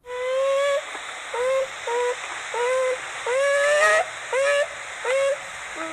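An animal's repeated calls: about seven short pitched calls in a row, each sliding slightly upward in pitch, the longest near the middle.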